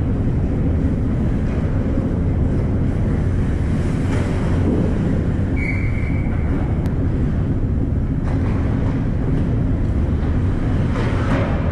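Steady low rumble of ice-rink background noise during a hockey game. About six seconds in, a referee's whistle blows once, briefly, as play stops with the puck held at the net.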